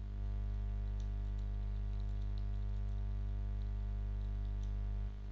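Steady electrical hum, with a scattering of faint computer-keyboard keystrokes as text is typed into a form.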